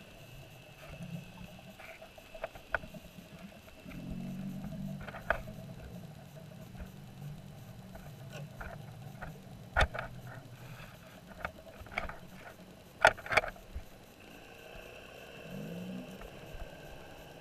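Underwater sound heard through a GoPro's waterproof housing: scattered sharp knocks and scrapes as a stingray's body lies on and rubs against the camera and the crab net's wire frame. The loudest knocks come about ten seconds in and twice in quick succession near thirteen seconds. Underneath is a low hum that swells twice.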